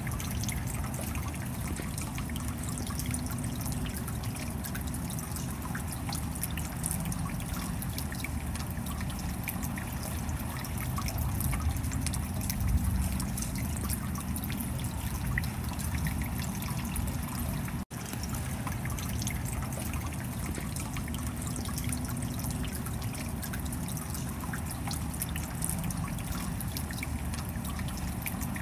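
Clear, rocky stream running over a small cascade: steady rushing and splashing of water close up, with many small gurgles and spatters through it. The sound cuts out for an instant once, about two-thirds of the way through.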